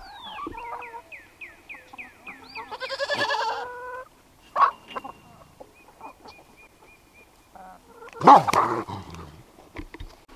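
Farmyard animal calls around a Great Pyrenees and a flock of hens at the dog's food: a bird sings a quick run of falling notes at the start, a pitched call sounds a few seconds in, and a sudden loud cry comes about eight seconds in.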